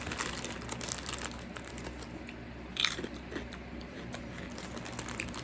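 Someone chewing crunchy snack chips: a run of irregular crunches, one louder about three seconds in.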